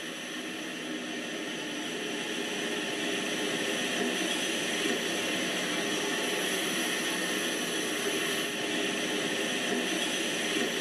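N-scale model freight train running along the track: a steady whirr from the locomotive's small electric motor and the rolling wheels, growing a little louder about three seconds in.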